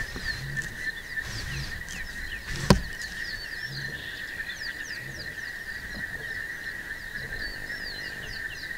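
Chorus of frogs and insects: a steady high-pitched trill with many short chirps over it. A single sharp knock comes about two and a half seconds in.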